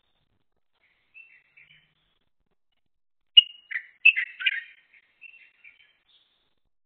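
Light-vented bulbul calling: a faint chirpy phrase about a second in, then a louder run of sharp chirps and warbled notes from a little past three seconds, trailing off into softer notes near the end.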